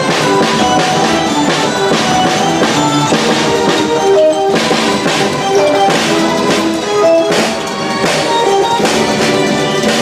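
Instrumental rock arrangement of a classical melody, with a steady drum-kit beat under held melody notes.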